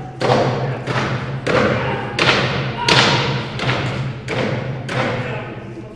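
A steady series of sharp thuds, about three every two seconds, each with a ringing tail, over a low steady hum.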